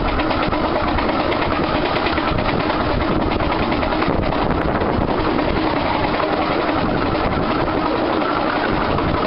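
Running noise of a 15-inch gauge steam train under way, heard from a coach window: a steady rumble and clatter of the carriage wheels on the track, with a 2-6-4T tank locomotive working at the head of the train.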